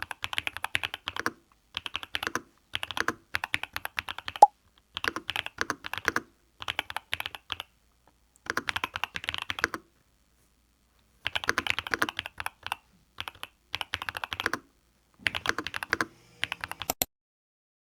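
Typing on a mechanical keyboard: quick runs of crisp key clacks in bursts with short pauses between them, and one louder clack about four and a half seconds in. The typing stops shortly before the end.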